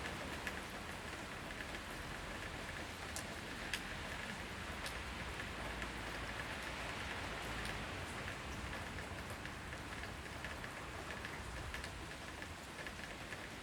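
Heavy rain falling steadily, an even hiss with scattered sharp drips and taps of drops on nearby surfaces.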